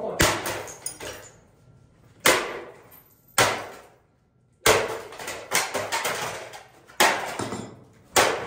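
A sewing machine being smashed with a sledgehammer on a wooden stump: about seven heavy blows at uneven gaps of one to one and a half seconds. Each blow is followed by a short clatter of breaking parts and scattering debris.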